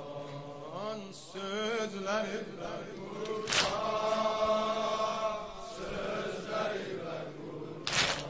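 Drawn-out, wavering male singing of a Shia mourning lament (noha), held on long vowels without clear words. Two loud sharp beats about four seconds apart cut through it, keeping the slow rhythm of the lament.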